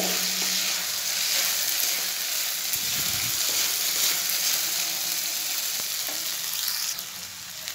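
Sweet zarda rice sizzling in a kadhai while a wooden spatula stirs and scrapes it, the sugar syrup cooked almost dry. The sizzle drops a little near the end.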